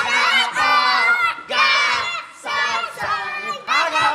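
A group of children shouting and cheering together in several bursts.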